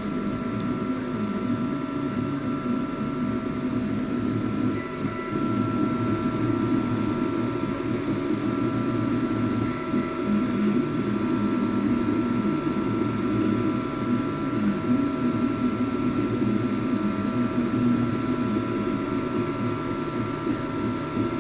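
Ultimaker-clone 3D printer running, its stepper motors moving in a busy, ever-changing pattern over a few steady high tones.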